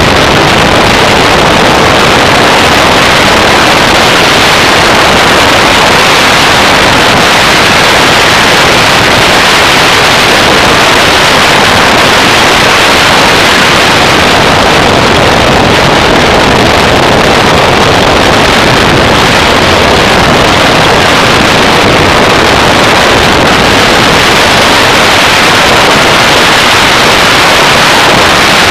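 Off-road race vehicle driving at speed: a loud, steady rush of engine and wind noise with no clear engine note.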